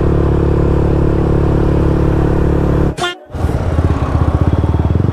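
Motorcycle engine running steadily while riding. About three seconds in the sound drops out briefly with a sharp click, then the engine comes back with a rapid, even pulsing.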